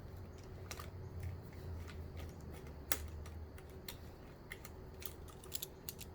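Scattered light clicks and taps of small parts and wiring being handled, with one sharper click about three seconds in, over a low steady hum.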